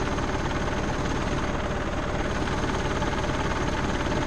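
Mazda T4000 truck engine running at idle with a steady, even pulsing, heard close to its crankcase breather pipe, which is pushing out heavy blow-by. The owner takes this as a sign that the engine is getting pretty worn out.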